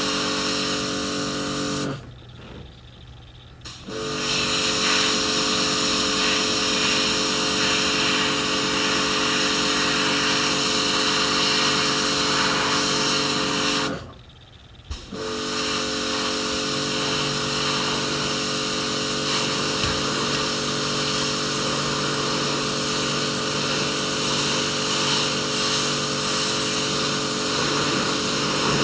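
Electric pressure washer running, its pump motor humming under the hiss of the high-pressure water jet on a boat deck. It stops abruptly twice, about two seconds in and again near the halfway point, for a second or two each time, then starts up again.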